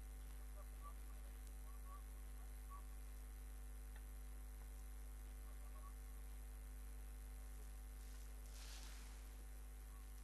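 Steady low electrical hum with faint steady tones above it, from the recording chain. A brief soft rustle of noise comes near the end.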